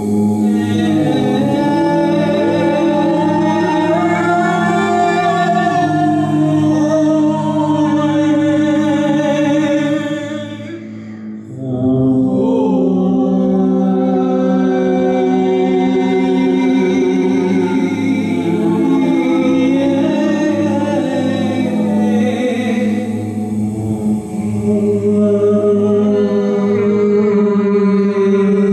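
Improvised a cappella singing by several voices, with long held notes over a steady low drone. The voices fall away briefly about eleven seconds in, then resume.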